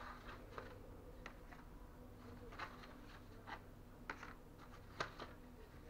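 Thin wood veneer sheets being handled and leafed through, giving scattered faint clicks and rustles, the sharpest about five seconds in, over a faint steady hum.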